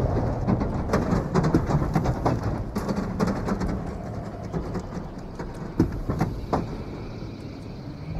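Film sound of a stalled highway: a steady low rumble with many scattered clicks and knocks, the sharpest about six seconds in.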